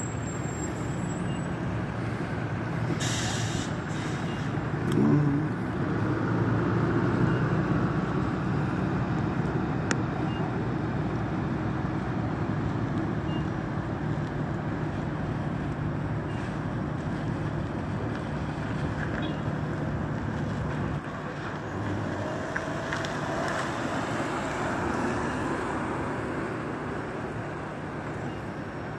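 Steady low running of idling vehicle engines with traffic noise, and a short hiss about three seconds in.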